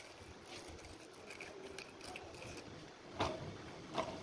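Hand tool scraping and cutting at the rubber tread of a worn truck tyre casing, which is being prepared for retreading. A low, uneven scraping runs throughout, with two sharper strokes about three seconds in and near the end.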